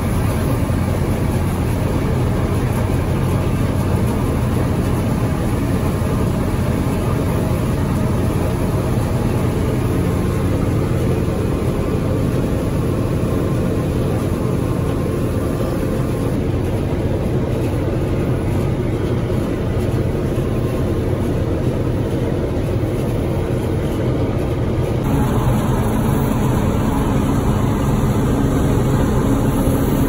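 Combine harvester running steadily while cutting and threshing soybeans, heard from inside the cab: a constant engine and machinery drone with a strong low hum. Its tone changes abruptly about five seconds before the end.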